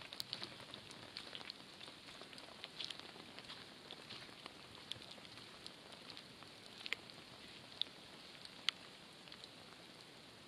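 Light, windless rain falling, a faint steady hiss with scattered sharp drops ticking close by, a few louder than the rest.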